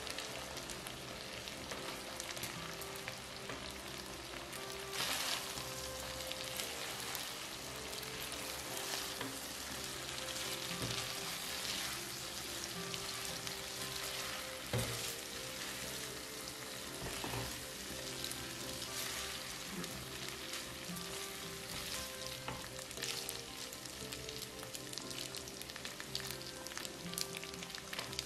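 Butter-garlic sauce sizzling in a nonstick frying pan as spaghetti and shrimp are tossed through it with tongs, with a few sharp knocks of the tongs against the pan.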